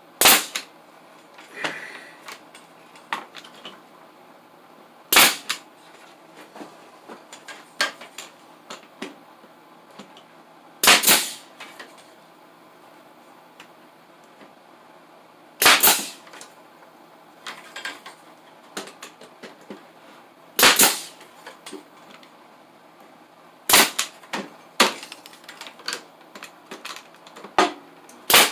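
About seven loud, sharp bangs a few seconds apart, each with a short ringing tail, with lighter clicks and knocks in between.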